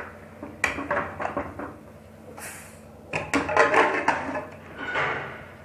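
A metal pressure cooker being opened after its pressure is let out: the lid scrapes and knocks against the pot as it is twisted free and lifted, with a short hiss about halfway through.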